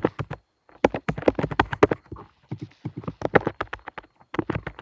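Typing on a computer keyboard: quick, irregular runs of clicking keystrokes with a few short pauses.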